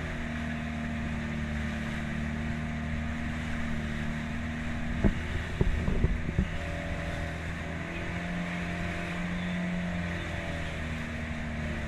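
A small boat's engine running steadily under way, with a few sharp knocks about five to six and a half seconds in.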